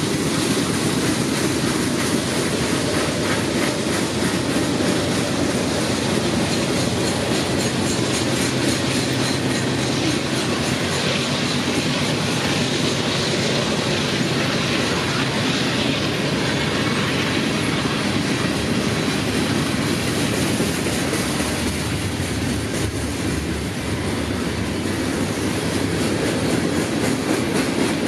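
A long mixed freight train's cars passing, steel wheels rolling steadily on the rails.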